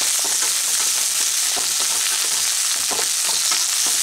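Cut spring onion stalks sizzling in hot mustard oil in a metal kadai, stirred with a wooden spatula that knocks and scrapes against the pan now and then.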